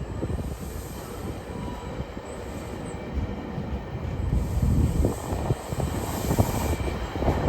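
GO Transit commuter train running on the rails, a low rumble of wheels on track that grows louder over the last few seconds.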